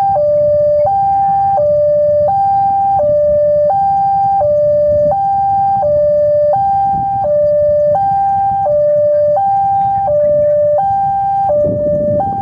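Railway level-crossing warning alarm sounding an electronic two-tone siren, switching evenly between a higher and a lower pitch about every 0.7 seconds.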